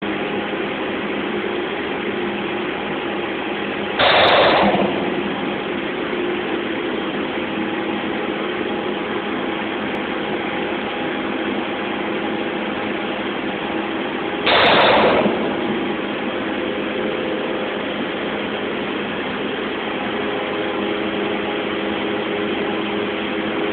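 Spray-drying line machinery running steadily, a dense mechanical noise with a hum of several held tones. Twice, about ten seconds apart, a loud rush of noise lasting about a second cuts in over it.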